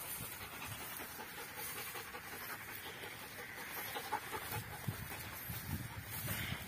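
Belgian Malinois dog panting, the breaths growing stronger in the last couple of seconds.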